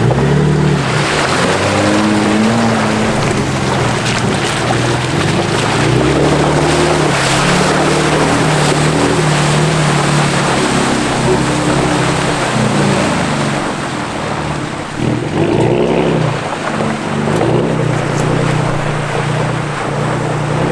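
A vehicle driving, with steady engine note and loud tyre and road or wind noise; the engine pitch shifts up and down in steps.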